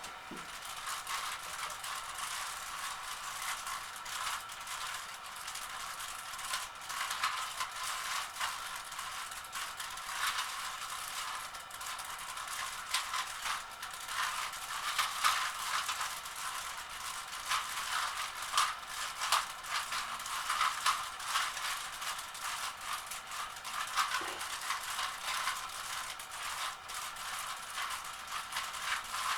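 Rubik's Cubes being twisted fast by hand: a continuous rattle of quick plastic clicks as the layers turn.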